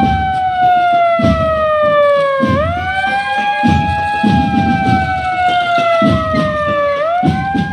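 A siren wailing in slow cycles: the tone jumps up sharply about two and a half seconds in and again near the end, then slides slowly down each time. Irregular low rumbles sound underneath.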